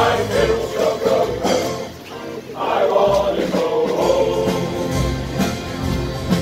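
A men's choir singing a Dutch folk song, amplified through loudspeakers, with a short pause between phrases about two seconds in.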